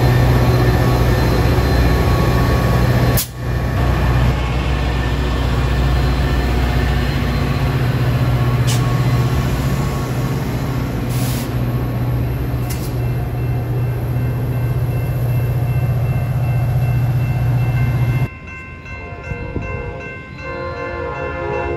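Metra commuter train's diesel locomotive running at close range, a loud steady engine drone with a deep hum. About 18 seconds in the sound cuts to a quieter, more distant scene: a train approaching, with a horn sounding.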